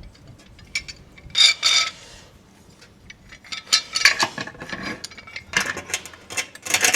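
Clamps being fitted and tightened to hold a stone window sill while it is set: bursts of clicking and scraping metal, about a second and a half in, around four seconds, and again near the end.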